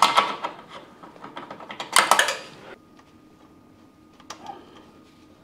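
Metal parts clattering and clinking as they are handled, in two short bursts, the second about two seconds in, followed by a single light click about four seconds in.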